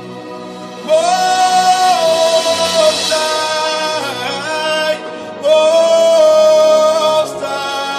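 Gospel worship song: a sung melody of long held notes over soft accompaniment, with two loud phrases, one starting about a second in and one just past the middle.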